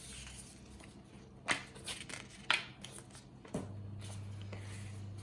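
Paper and card packaging from an iPhone box being handled: a few short rustles and slides about half a second apart. A steady low hum comes in about three and a half seconds in.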